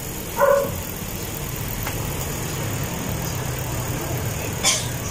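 Steady low engine hum, with a brief pitched sound about half a second in and a short rasp near the end.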